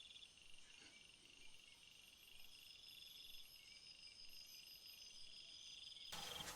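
Near silence with faint, steady insect trilling, finely pulsed and high-pitched, typical of crickets.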